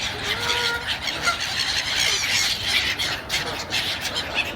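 A hungry bird calling with rapid, high-pitched, squealing chirps that run on without a break.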